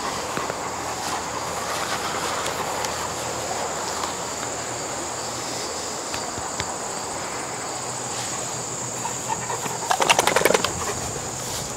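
Steady high trill of insects, and near the end a brief burst of rapid flapping and rattling as a Great Pyrenees shakes its head, its ears and collar flapping.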